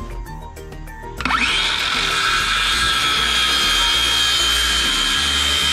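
DeWalt cordless circular saw spinning up about a second in with a quick rising whine, then cutting through a wooden board with a steady high-pitched whine and rasp. Background music plays underneath.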